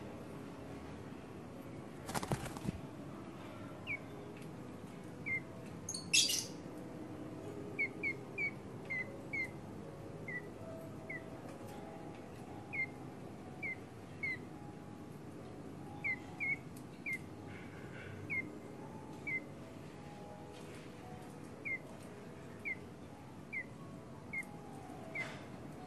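Caged Cak Jenggot bird giving short, sharp chirps, repeated roughly once a second, with two brief flutter-like bursts about two and six seconds in.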